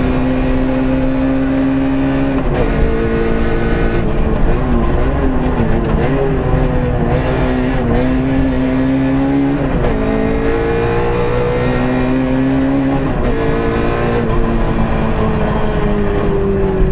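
Peugeot 106 A5 rally car's engine heard from inside the cabin at stage pace: revs climb and drop sharply at gear changes a few seconds in, about ten seconds in and again about three seconds later, and waver up and down through bends in between. The revs fall away near the end.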